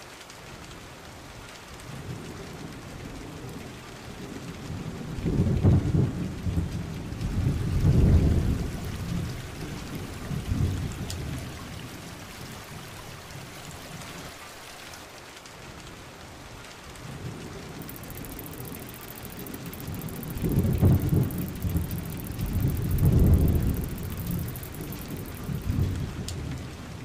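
Steady rain falling, with two long low rolls of thunder, one about five seconds in and another about twenty seconds in.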